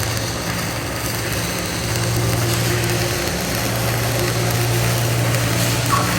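Stick-welding (SMAW) arc crackling steadily as a vertical-up 3G weld is run, over a steady low hum from the welding machine.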